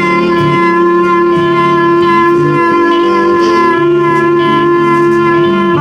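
Blues band playing live, a reed instrument holding one long steady note over guitar, bass and drums; the note ends right at the close.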